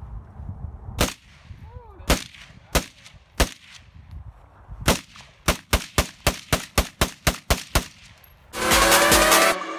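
AR-15 rifle firing: five single shots about a second apart, then a rapid string of about a dozen shots at roughly five a second. Loud electronic music cuts in near the end.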